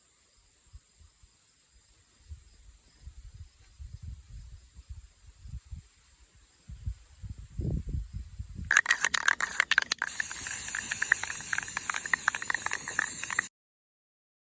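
Crickets chirping in a steady high trill with low bumps of handling noise, then an aerosol spray-paint can hissing loudly from about nine seconds in until it cuts off abruptly.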